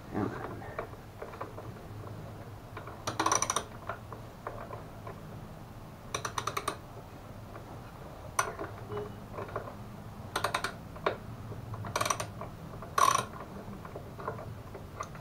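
A ratchet wrench clicking in about five short bursts, with small metal knocks between them, as it turns a bolt on a scooter's front bumper mount. The bolt is not catching its hole.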